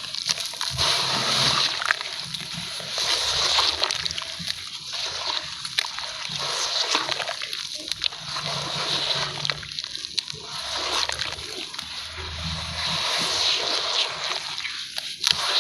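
Sand-cement cakes crumbling in plenty of water: repeated wet sloshing and splashing that swells and ebbs, with scattered small crisp crunches.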